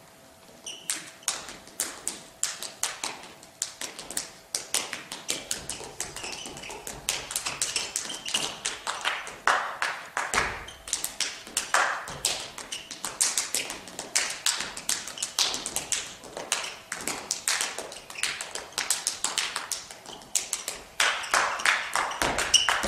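A dancer's feet tapping and stamping on a stage floor: fast, uneven runs of sharp taps, several a second, with heavier thumps among them.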